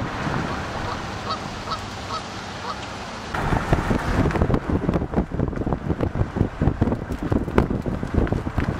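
Car driving, with road noise and wind on the microphone. About a second in come four short calls roughly half a second apart, and about three seconds in the wind buffeting suddenly grows much louder and choppier.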